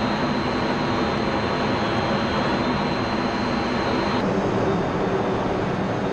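F-16 fighter jet's engine and airflow heard from inside the cockpit: a loud, steady roar with a thin high whine. About four seconds in the whine cuts out and the roar shifts slightly.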